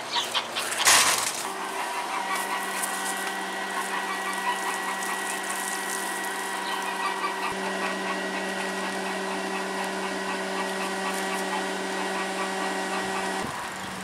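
Small electric blower fan of a homemade air-conditioned suit running with a steady motor hum. A brief burst of noise comes about a second in.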